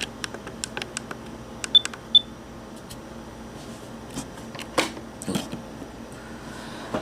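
Clicking of a compact digital camera's buttons, with two short high electronic beeps about half a second apart, then a few handling knocks as the camera is moved.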